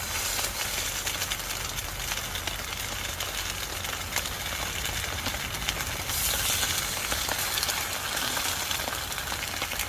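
Chicken breast sizzling in a pan: a steady hiss with small crackles, which swells for about a second around six seconds in. A low steady hum runs underneath.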